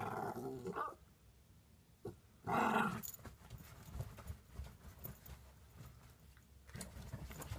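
Morkie puppy vocalizing in its 'talking' way, answering back in complaint: two loud bursts about a second long, at the start and about two and a half seconds in, then fainter sounds.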